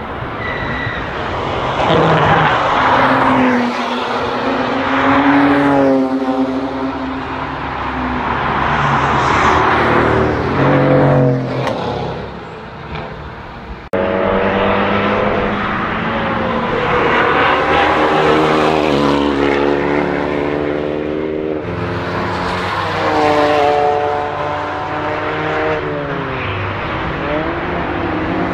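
Cars driving hard past a racetrack corner one after another, each engine note climbing under acceleration and stepping down at gear changes, then falling away as the car passes. The sound jumps abruptly about halfway through as a new car comes by.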